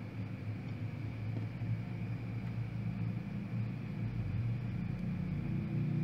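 A steady low rumbling hum that grows stronger about halfway through.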